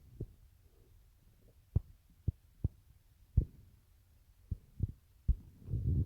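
Soft low thumps, about nine in all, scattered irregularly, with a low rumble building near the end.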